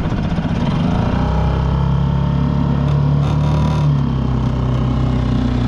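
Small 3.5 hp outboard motor running, revving up about a second in and then holding a higher, steady pitch. It is mounted too high on the canoe's transom, so the propeller sucks air and the engine races without much bite.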